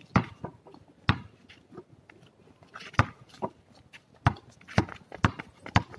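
Basketball bouncing on a concrete court. A few scattered bounces come first, then steady dribbling at about two bounces a second in the second half.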